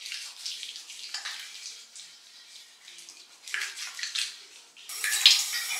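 Wet rubbing and splashing of hands lathering a foaming cleanser over a face, getting louder and steadier near the end.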